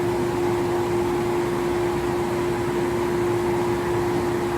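Vacuum compression machine running with a steady hum and a rush of air, drawing the air out of a plastic bag around a foam pet bed to shrink it for shipping.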